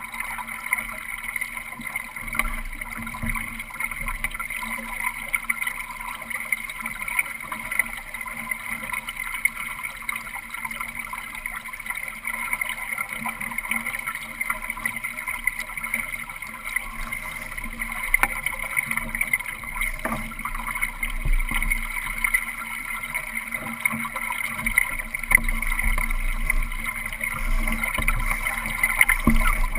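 Water rushing along the hull of a Solo sailing dinghy under sail, with wind buffeting the microphone in low gusts that grow stronger near the end.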